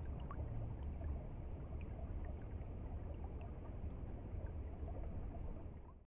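Shallow stream running over stones: a steady rush of water with small bubbling plinks over a deep low rumble, fading out at the very end.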